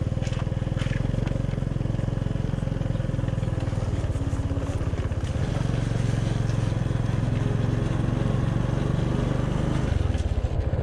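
Motor scooter's small engine running steadily while riding, heard from the rider's seat.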